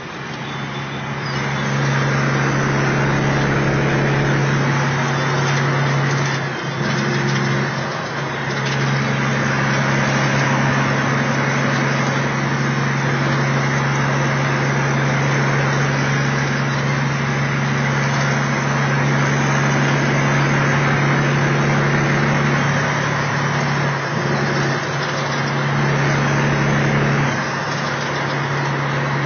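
Kenworth T600A semi truck's Caterpillar diesel engine running at a steady cruising drone, with tyre and road noise, heard from inside the cab while driving through a road tunnel. The sound swells over the first second or two as the truck enters the tunnel.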